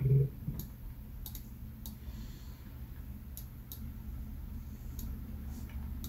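Sparse, irregular single clicks from working a computer's mouse and keys, about nine spread unevenly, over a low steady hum.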